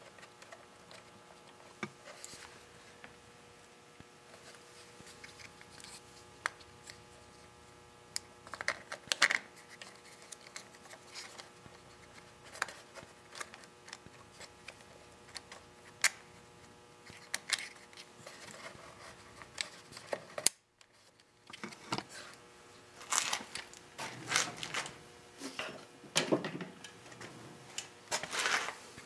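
Scattered clicks, taps and knocks of the plastic air filter housing of a Honda GX31 engine being handled and pressed into place over the carburetor, in irregular clusters. A faint steady hum runs underneath.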